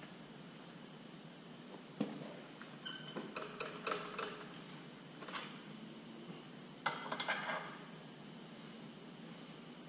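Light metallic clinks and knocks of parts and tools being handled on a Detroit 3-53T diesel engine block on an engine stand. A single knock comes about two seconds in, a quick run of clinks follows a second later, and another cluster comes near the end.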